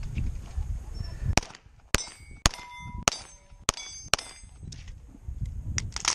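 About six pistol shots in quick succession, each followed by the ringing clang of a struck steel target plate, the last one about four seconds in. Near the end come a few metallic clicks as the pistol's magazine is dropped to unload it.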